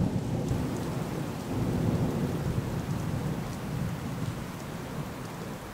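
Thunder: a long, low rolling rumble that slowly dies away.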